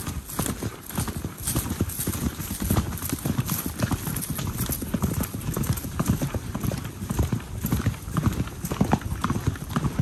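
Hoofbeats of purebred Arabian horses under riders: a quick, dense, uneven run of hoof strikes.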